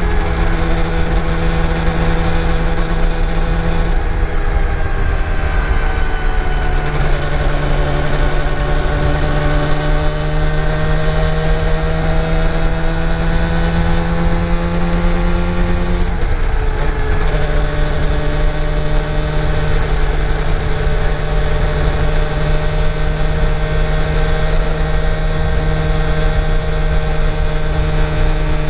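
Yamaha TDR250's two-stroke twin engine running under way, with a low rumble of road and wind noise. Its note climbs slowly, drops sharply about sixteen seconds in, then holds steady.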